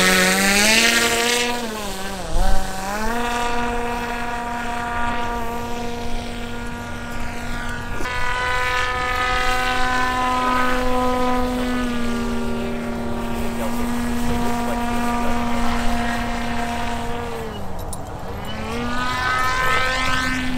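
Radio-controlled model airplane's motor and propeller running with a steady buzzing drone. The pitch dips and climbs back as the throttle is eased and reopened, about two seconds in and again near the end. A brief loud knock comes about two and a half seconds in.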